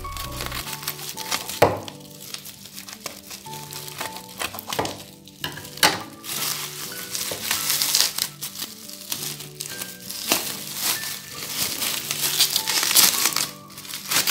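Plastic bubble wrap crinkling and rustling as it is pulled off a book, with a few sharp clicks, over soft background music.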